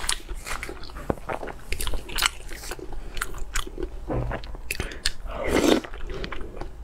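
A person biting and chewing food close to the microphone, with repeated sharp crunches and crackles and a louder, longer crunch about five and a half seconds in.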